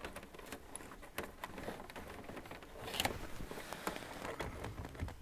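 Faint rustling and light clicks of an electrical wire being handled and pulled through behind a car dashboard, with one sharper click about three seconds in.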